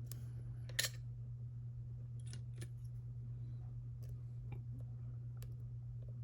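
A lock cylinder and picking tools being handled: a few small, sharp clicks and taps, the loudest a quick double click about a second in, then fainter single clicks every second or so. A steady low hum underneath.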